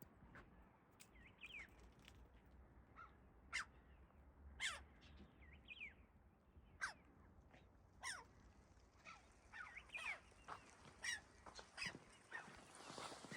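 Birds calling: many short, high calls, each falling in pitch, coming every second or so and sometimes overlapping.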